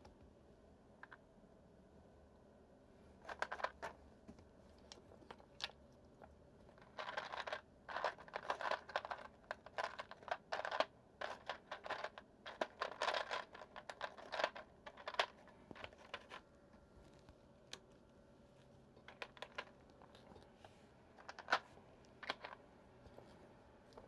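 Mechanical keyboard being typed on in bursts of rapid keystrokes: a short burst about three seconds in, a long run from about seven to sixteen seconds in, and another burst around twenty seconds in, with pauses between.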